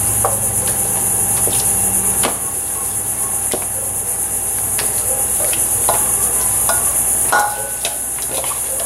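Hands rubbing dry seasoning into raw pork chops in a stainless steel bowl: soft handling of the meat with scattered light clicks and knocks against the bowl. A steady high-pitched hiss runs underneath.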